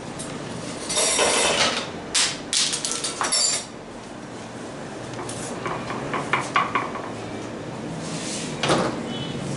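Spatula scraping a thick cream mixture out of a mixing bowl and knocking against the bowl and a glass baking dish: a rush of scraping about a second in, then several sharp knocks, lighter taps around six seconds, and one more scrape near the end.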